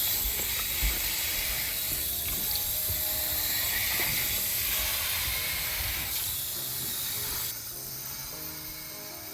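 Tap water running as freshly dug potatoes are rinsed of soil, a steady hiss that drops off noticeably about seven and a half seconds in. Soft background music plays underneath.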